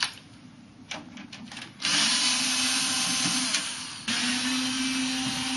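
Cordless power drill unscrewing the case screws of a G3 iMac. A few light clicks, then the motor runs steadily for about two seconds, stops briefly, and runs again for about a second and a half.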